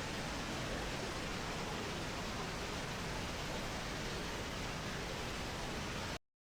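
Steady rushing of a waterfall, an even wash of water noise that cuts off suddenly near the end.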